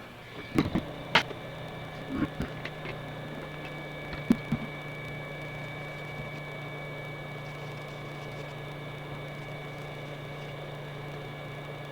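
Hot-air rework station blowing steadily at 350 °C to reflow a replacement touch-screen connector. It comes on about half a second in with a steady hum and a faint whine, and several sharp clicks and taps sound in the first few seconds.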